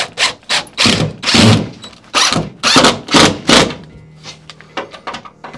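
A quick, irregular series of knocks and thumps: about a dozen in the first four seconds, then fainter taps. They come from work on a drywall panel being fastened to a kitchen wall.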